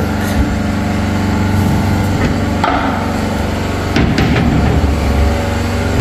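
Background construction-site noise: a steady engine drone runs throughout, with a few sharp knocks, one just after the start, one near the middle and one about four seconds in.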